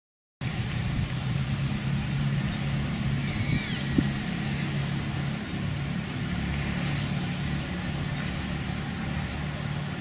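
Steady outdoor background noise of distant road traffic with a low hum, cutting in suddenly about half a second in after silence, with a single sharp click about four seconds in.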